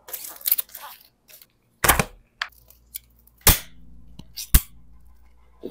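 Rustling and crinkling as the card lid is pulled off an aluminium foil food tray, then a thump. About three and a half seconds in, an aluminium soda can's pull tab cracks open with a sharp pop, followed by a steady hiss of escaping fizz and a second sharp click.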